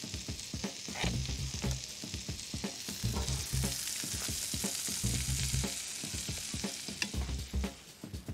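Butter sizzling in a hot frying pan as it heats for frying breadcrumbed fish cakes, the sizzle swelling for a few seconds in the middle. A low pulse repeats about every two seconds underneath.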